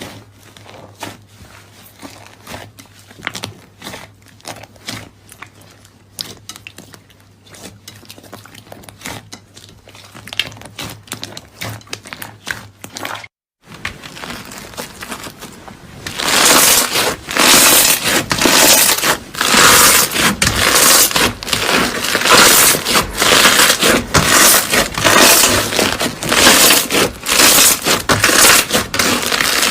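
Clear slime worked by hand: soft, sticky clicks and pops at first, then, after a brief break about halfway through, much louder and denser crackling and popping.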